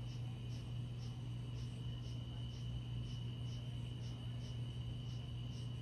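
Night insects calling: a steady high trill with a shorter chirp repeating about twice a second, over a steady low hum.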